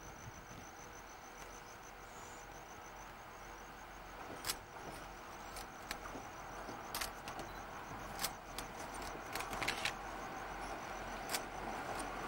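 Stainless-steel diesel railmotor approaching across a timber trestle bridge, its running noise growing steadily louder. From about four seconds in there are sharp, irregular clicks of its wheels on the rails. Insects chirp steadily at first.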